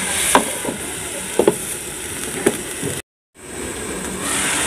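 Shredded cabbage frying in oil in a pan under a glass lid: a steady sizzle, with a few light clicks as the lid is settled on the pan in the first couple of seconds. The sound cuts out completely for a moment about three seconds in, then the sizzle resumes.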